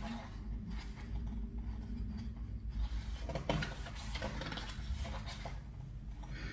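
Quiet rustling of paper as an album's pages and inserts are handled and turned, with a few soft clicks.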